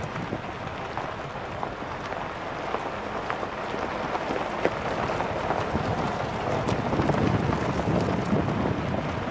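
Galloper 4x4 rolling down a gravel track: steady wind noise on the roof-mounted microphone over tyres on loose stones, with a few small clicks.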